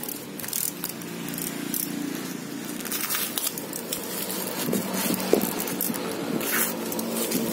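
Plastic courier mailer bag crinkling and rustling in short bursts as it is handled and slit open with a utility knife, over a steady low hum.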